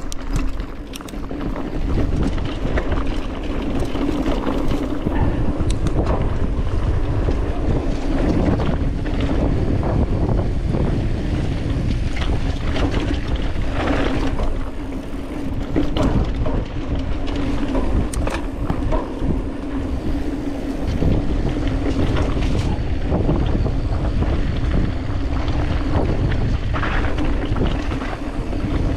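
Wind buffeting the action camera's microphone as a Commencal Meta TR 29 mountain bike rides down a dry dirt singletrack, its tyres rumbling over the ground, with scattered knocks and rattles from the bike over bumps and a steady hum underneath.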